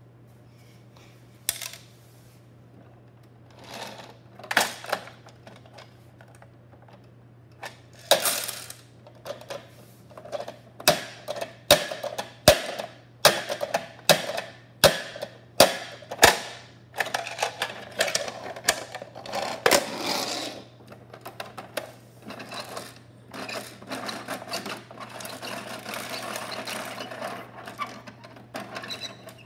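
Plastic parts of a Bruder toy garbage truck being worked by hand: scattered clicks and knocks, a quick run of sharp clicks midway, then a denser plastic rattle near the end.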